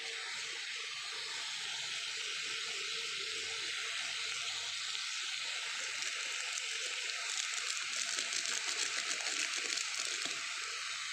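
Chopped onions and tomatoes sizzling steadily in hot oil in an aluminium kadai, with sharper crackling for a few seconds near the end.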